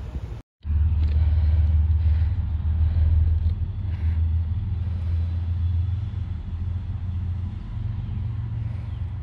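A low, steady vehicle rumble that starts after a brief cut to silence about half a second in.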